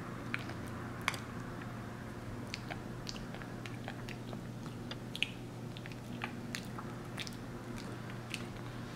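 Capuchin monkey chewing a soft, overripe banana close to the microphone: irregular wet clicks and smacks of its mouth, a dozen or so spread unevenly through the stretch.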